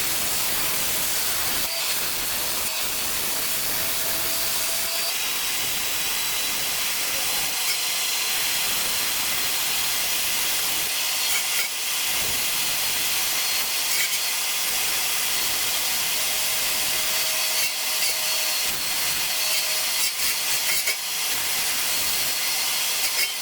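Handheld laser welder running a continuous weld on stainless steel with dual 1/16-inch stainless filler wire: a steady hiss, with a faint thin tone that comes and goes.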